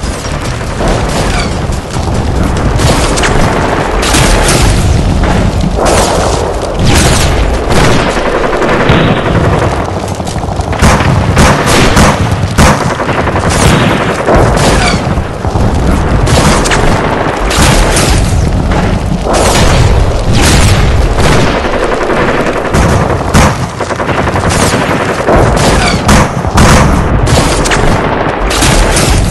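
Battle-scene gunfire: rapid rifle shots and machine-gun bursts one after another, dense and unbroken, over deep booms.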